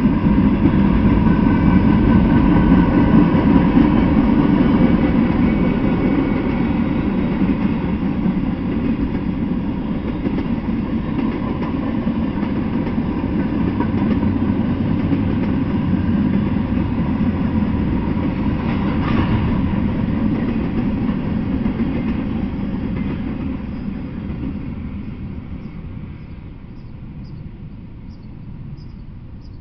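Freight train cars rolling past close by: a steady rumble and rattle of steel wheels on the rails, with one short sharp noise about two-thirds of the way through. The sound fades away near the end as the last cars pass.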